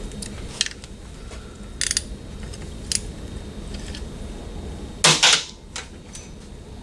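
Metal hand tools clinking and clicking: sockets and a wrench being handled and tried on engine bolts to find the right size. Several separate clicks, with the loudest clatter about five seconds in.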